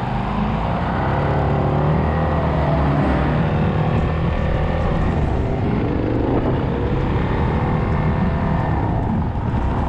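Suzuki DR-Z400's single-cylinder four-stroke engine running while being ridden, its pitch rising and falling with the throttle, over steady wind noise.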